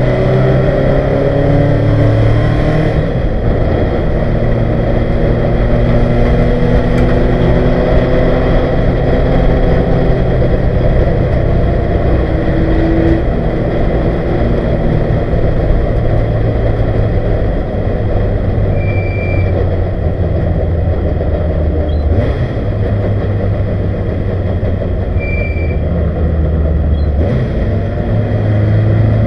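1971 Ford Capri's 2.0-litre four-cylinder race engine heard from inside the cabin, running hard with revs rising through the gears, then easing off as the car slows near the end.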